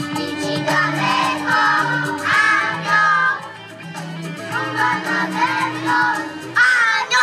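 A group of young children singing a song together over a recorded accompaniment with a stepping bass line.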